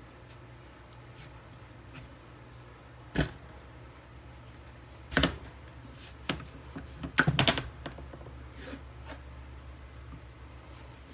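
A chef's knife cutting through a peeled butternut squash on a plastic cutting board: a few sharp knocks of the blade and squash against the board, the loudest a quick cluster about seven seconds in, over a steady low hum.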